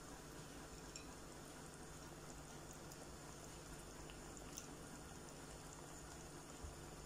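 Coconut-based fish curry simmering in a pot: faint bubbling with small scattered pops.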